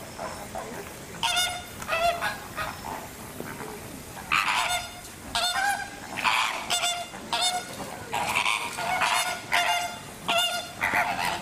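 A flock of flamingos honking: short repeated calls, often in quick pairs, starting about a second in and coming more and more often from the middle on.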